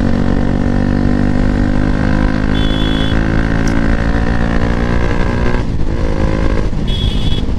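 Bajaj Pulsar NS200's single-cylinder engine running through a loud aftermarket exhaust as the bike is ridden. The revs slowly fall for about five seconds, dip briefly, then run steadier.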